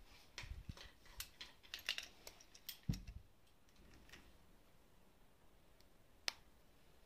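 Quiet small clicks and knocks from handling a black-powder revolver. They come in a cluster over the first three seconds and end in a low thump, followed by one sharp click near the end.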